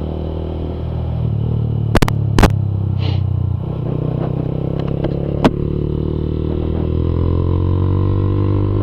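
Honda CG 150 Fan single-cylinder four-stroke engine running under way through a Fortuna Mini Trioval F1 aftermarket exhaust, whose burnt-in fiberglass packing makes it run louder. Engine speed climbs over the last few seconds. Three sharp knocks come about two seconds in and again past five seconds.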